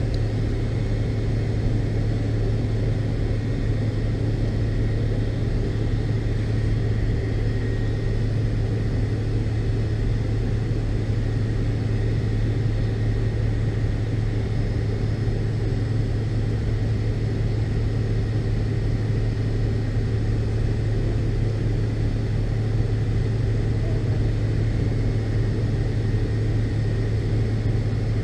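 Steady low cabin drone inside a McDonnell Douglas MD-82 airliner before takeoff, an even hum with a faint high whine above it.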